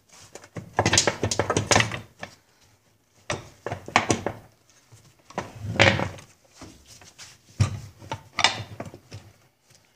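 Clunks and rattles of a Johnson 9.5 HP outboard's housing and loose parts being handled and shifted, in about five separate bursts.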